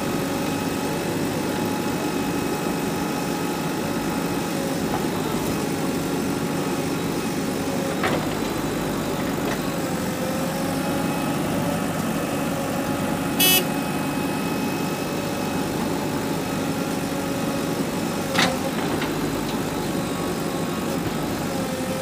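JCB 3DX backhoe loader's diesel engine running steadily while working, its pitch sagging and recovering twice. A brief loud, sharp sound comes about halfway through, and a short knock a few seconds later.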